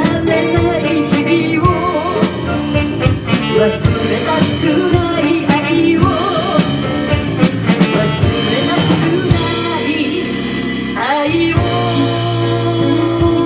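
Live pop band playing: drum kit, bass and keyboards with a wavering melodic lead line over them, and a sliding rise into a held note near the end.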